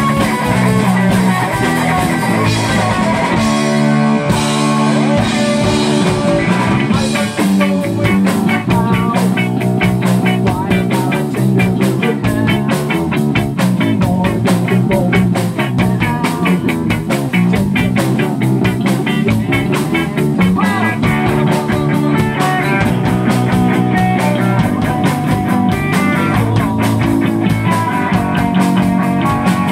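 Live rock band playing loud, with electric guitar and drums.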